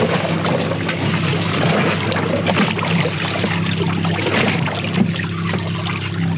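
Water lapping and splashing against the side of a boat, over a steady low hum.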